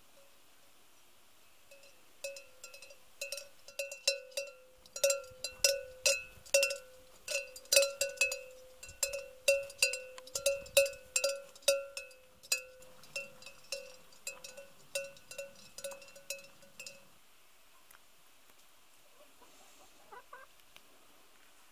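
Bell on a grazing cow's collar clanking irregularly, roughly two strikes a second, each strike ringing the same note with higher overtones, then falling silent. A few faint hen clucks near the end.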